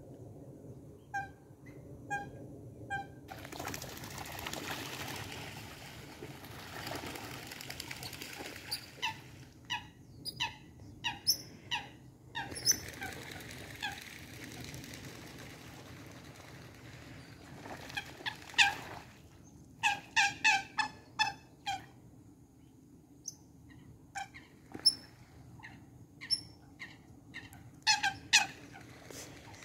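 Eurasian coots calling on the water: short, sharp, repeated calls in clustered bursts, some loud and close. A stretch of rushing noise runs for a few seconds near the start.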